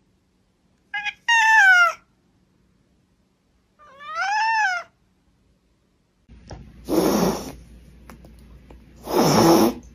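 Domestic cat meowing. A short chirp and a meow that falls in pitch come about a second in, then a meow that rises and falls near four seconds. In the second half a different cat gives two harsher, noisier cries over a steady background hiss.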